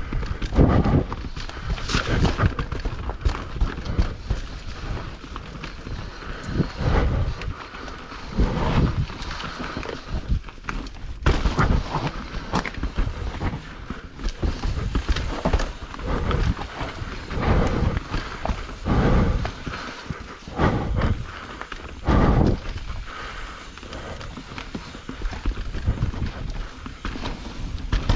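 Mountain bike riding a wet singletrack descent: tyres running over dirt, with irregular knocks and rattles from the bike hitting roots and rocks, and wind rumbling on the microphone.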